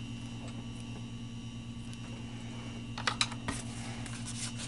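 A few light clicks and taps of the phone's packaging being handled, clustered about three seconds in, over a steady background hum.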